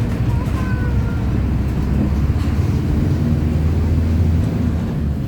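Mercedes-Benz OF-1722M bus under way, its diesel engine running steadily at high revs, with the differential growl this bus is known for.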